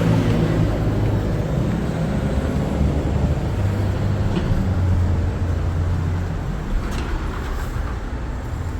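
Heavy vehicle running with a steady low rumble and hum.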